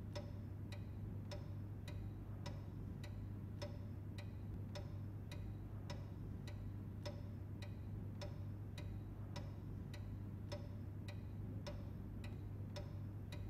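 Faint, even ticking, about three ticks every two seconds, over a steady low hum and hiss.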